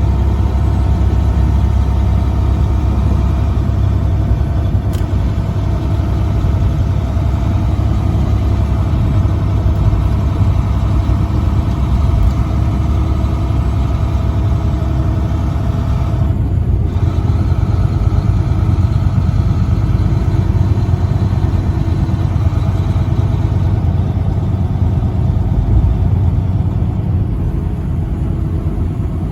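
Truck engine running steadily with a deep, constant drone and road noise while driving.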